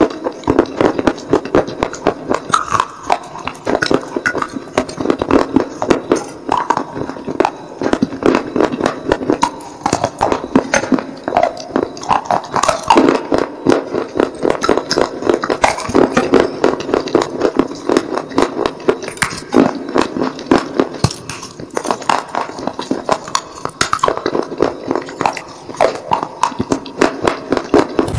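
Close-miked crunching of baked terracotta clay being bitten and chewed, a dense, continuous run of short, sharp crunches.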